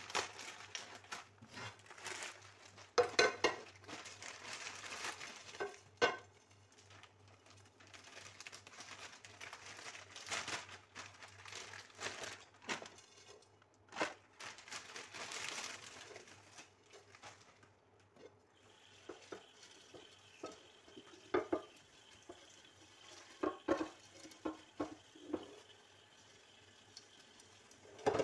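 Kitchen handling sounds: a plastic bag crinkling, then dishes and utensils knocking and clattering in irregular bursts.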